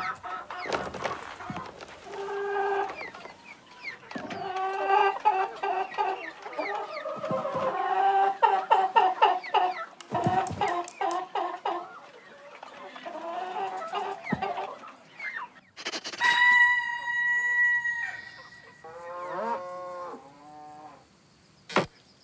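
Hens clucking in quick runs of short, pitched clucks. About three-quarters of the way through, one long held call of a steady pitch comes in, followed by a shorter wavering call.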